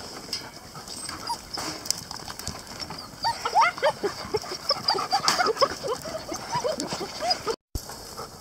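Two-month-old German shepherd puppies whining and yelping, a rapid run of short, rising-and-falling cries from several pups at once, starting about three seconds in and breaking off suddenly near the end.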